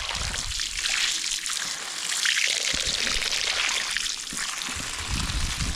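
Water running hard from an outdoor garden tap, a steady rush at high pressure.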